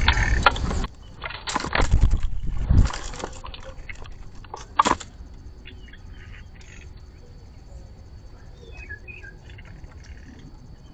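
Blue jay feeding at a seed feeder: loud bursts of rustling and knocking in the first three seconds and once more near five seconds, then quieter, with faint bird chirps.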